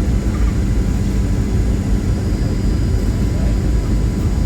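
Steady low rumble of an airliner cabin in flight, engine and airflow noise, with faint steady higher tones over it.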